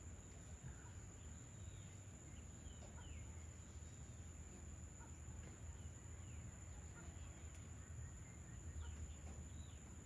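Faint evening nature ambience: scattered short bird chirps over a steady high-pitched insect drone and a low steady rumble.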